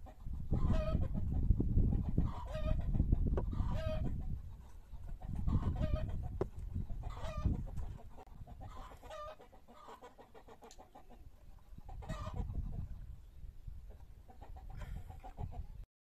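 Chickens clucking, short calls repeating every second or so, over a low rumbling noise that fades about halfway through.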